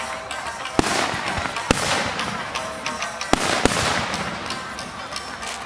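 Aerial fireworks bursting: several sharp booms irregularly spaced, about a second or two apart, over continuous crackling.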